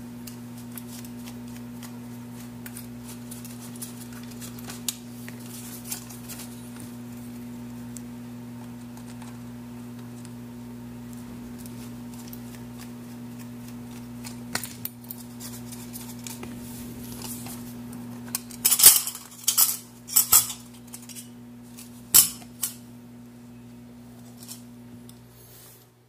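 A screwdriver works the screws out of an old alarm clock's metal case, giving scattered light metal clicks. In the last third comes a run of louder metal clinks and clatter as the screws and movement are handled. A steady low hum runs underneath.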